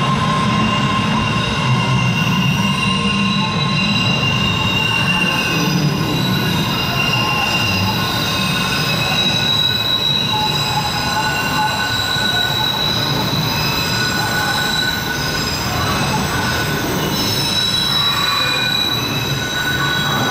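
MBTA Red Line subway train pulling away into a curved tunnel, its wheels squealing in several steady high tones over a low rumble.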